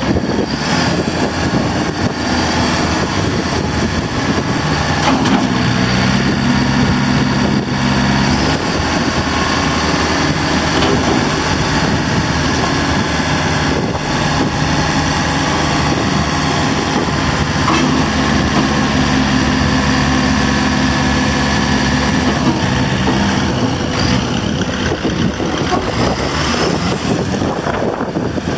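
John Deere 4600 compact tractor's three-cylinder diesel engine running steadily while the front loader is raised and lowered and the tractor drives off.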